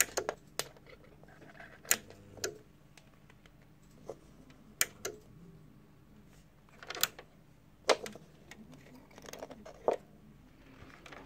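Scattered sharp clicks and light knocks, about ten over the stretch, from hands handling small parts and wires while bridging the air washer's water-level contacts, with a faint low hum underneath.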